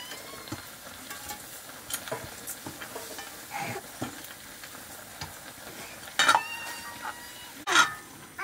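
Chicken pieces frying with a steady sizzle in a black metal pan while a metal ladle stirs and scrapes through them. Twice near the end the ladle knocks against the pan with a short metallic ring.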